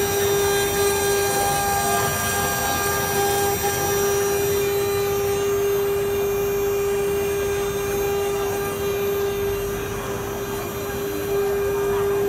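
CNC router spindle running with a steady high whine while a fine engraving bit carves a wooden workpiece turning on the rotary axis. The higher cutting hiss grows fainter about five seconds in.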